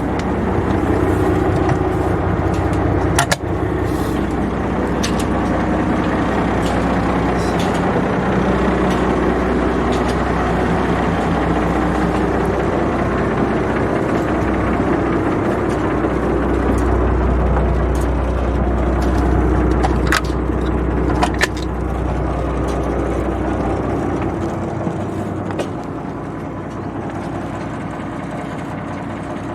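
Engine of the FG-40-3 boat running steadily, a deep low hum with a few sharp clicks or knocks; the low hum eases off near the end.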